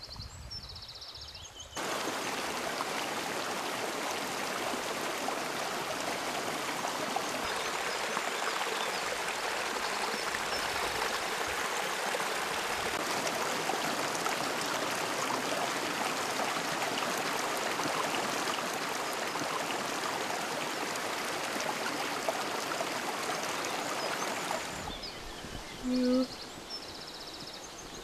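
Running water of a small stream, a steady rushing that starts suddenly about two seconds in and drops away about three seconds before the end.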